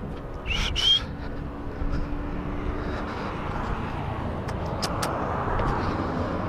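Street noise with traffic going by. A short rising squeak comes about half a second in, and a few sharp clicks come around five seconds in.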